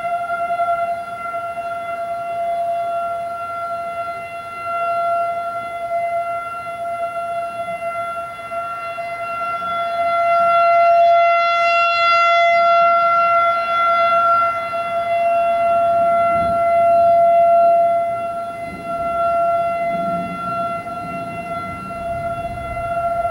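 Federal Signal 2001-AC rotating warning siren sounding a steady tone at a fixed pitch. Its loudness swells and fades slowly as the rotating horn sweeps past, loudest around the middle.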